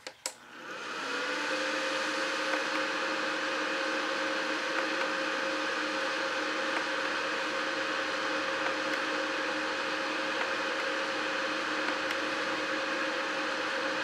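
Small computer-style fan of a Handy Heater Pure Warmth ceramic space heater, switched on with a click. It spins up over about a second, then runs steadily with an even whir and a faint steady whine.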